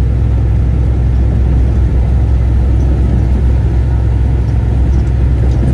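Steady low drone of a loaded semi-truck's engine and tyres cruising at highway speed, heard from inside the cab.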